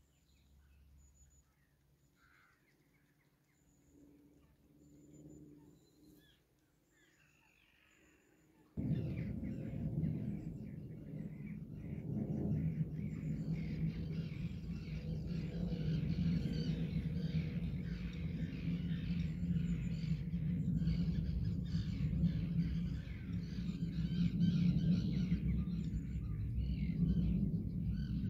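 Wild birds chirping and singing in the background, faint at first. About nine seconds in, a loud, steady low rumble starts abruptly and stays to the end, with the bird chirps carrying on over it.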